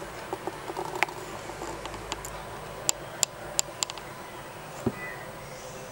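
Faint steady hiss with scattered sharp clicks, a quick run of about five in the middle, and a single low thump near the end.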